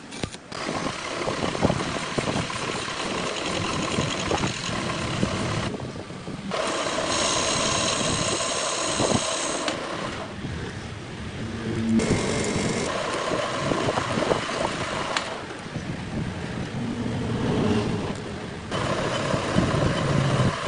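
Metal lathe running and cutting metal: a steady mechanical noise with the grind of the tool on the workpiece. It changes character abruptly several times, and for a few seconds near the middle a high ringing whine rides over it.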